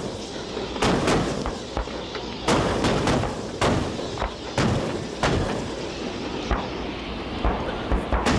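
Cougar armoured vehicles' 76mm guns firing in a mass shoot: about a dozen sharp gun reports at irregular intervals, some close together, over a low rumble.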